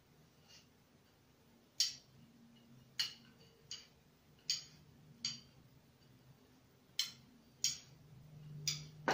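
Large knitting needles clicking against each other as stitches of chunky yarn are worked, about eight sharp clicks at uneven intervals of roughly a second.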